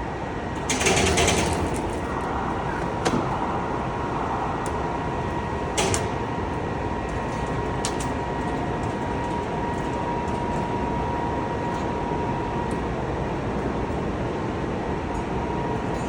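Factory machinery running steadily with a thin, steady whine. A brief hiss comes about a second in, and a few sharp clicks follow.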